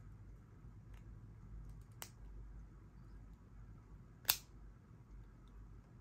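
A few sharp clicks from small objects being handled: a faint tick about a second in, a sharper click about two seconds in, and the loudest click a little past four seconds, over a low steady hum.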